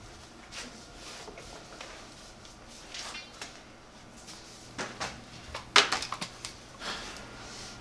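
Scattered knocks and bumps of people moving about in a small room. The loudest is a sharp knock about six seconds in, followed by a quick run of lighter clicks.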